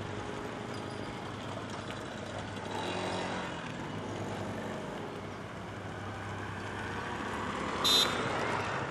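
Outdoor road traffic noise, a steady rumble of vehicles, swelling slightly about three seconds in. Near the end comes one short high-pitched beep, the loudest sound.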